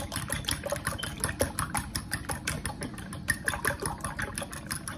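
Egg and milk mixture whisked briskly with a metal utensil in a glass bowl: fast rhythmic clinks of metal against glass, several a second, with the liquid sloshing.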